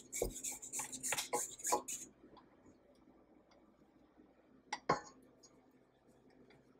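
Spatula scraping down the sides of a KitchenAid stand mixer's stainless steel bowl, a quick run of scrapes and clinks for the first two seconds and one more sharp scrape about five seconds in. The mixer motor is off.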